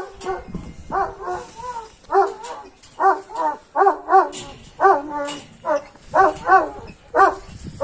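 A dog barking over and over in a rapid series of short barks, many coming in quick pairs.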